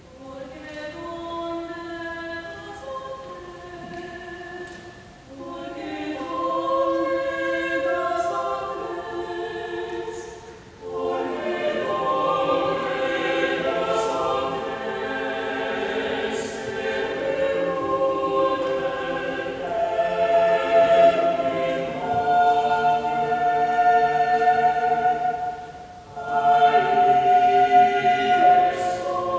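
Mixed church choir singing a slow anthem in long held phrases, beginning softly and growing fuller and louder from about eleven seconds in, with brief pauses between phrases.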